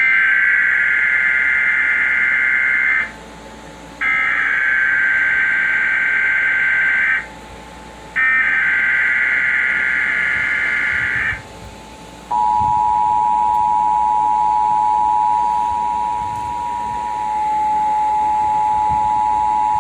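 Emergency Alert System tones: three bursts of the SAME digital header, a harsh warbling data screech about three seconds each with a second's pause between, then about twelve seconds in the steady two-tone EAS attention signal (853 and 960 Hz together). The header and tone announce an incoming emergency alert, here a Child Abduction Emergency.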